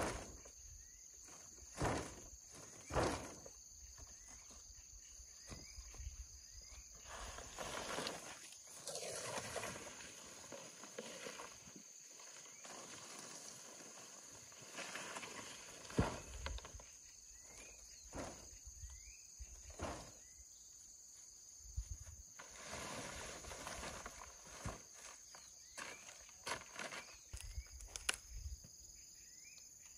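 Insects droning steadily at a high pitch, with scattered knocks and stretches of rustling.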